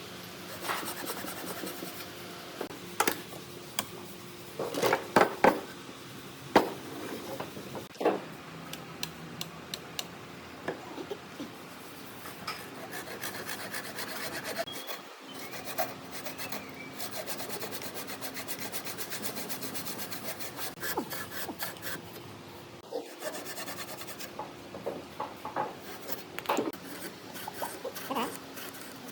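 Wood being worked by hand: steady rubbing and scraping on the wood, with scattered sharp knocks and taps.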